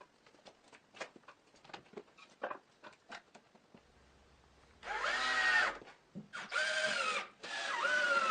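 Power drill run in three short bursts of about a second each, its whine sagging and rising in pitch, after a stretch of light scattered knocks and clicks.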